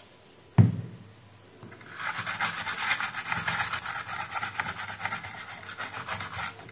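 A single knock about half a second in. Then a metal hand tool scrapes over a printed circuit board in rapid back-and-forth strokes for about four seconds.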